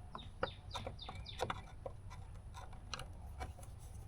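A bird calling with a quick run of short, high chirps that fall in pitch, bunched in the first second and a half, with scattered light clicks and taps.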